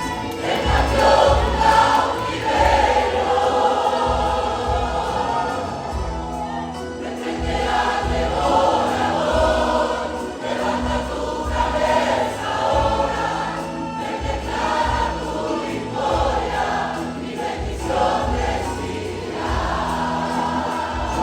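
Church choir singing a worship song live, accompanied by a band with a steady low beat of bass and drum.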